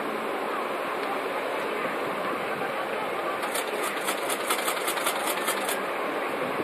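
Steady background noise, with a quick run of even clicks, about five a second, for about two seconds past the middle.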